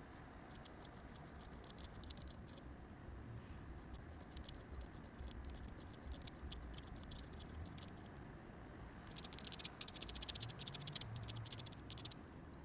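Fountain pen nib scratching on paper in quick, short strokes as letters are written. The scratching comes in bursts and is busiest in the last few seconds.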